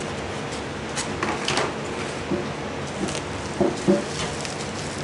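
Handling noises: packing wrap rustling and crinkling, with a few light knocks, as shipped eggs are unwrapped by hand, over a steady background hiss.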